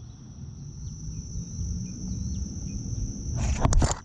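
Steady high-pitched insect chorus with faint short chirps over a low rumble, broken near the end by a loud brief rustling burst.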